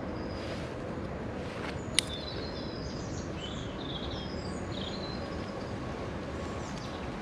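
Small birds chirping in short high calls over a steady outdoor hiss, with one sharp click about two seconds in.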